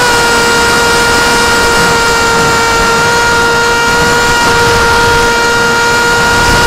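Sunnysky 2204 brushless motor spinning a 6045 propeller on a foam flying wing, heard from a camera on the airframe. It gives a loud, steady whine at part throttle, which dips slightly in pitch at the very start and then holds, over a low rushing noise.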